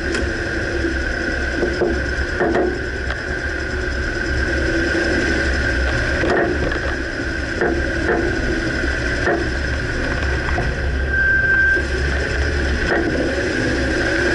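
A 2009 Dodge Ram under way, with steady engine and road noise and about seven short clunks at uneven intervals of one to four seconds. The clunks come from the front right suspension, a fault the owner cannot pinpoint.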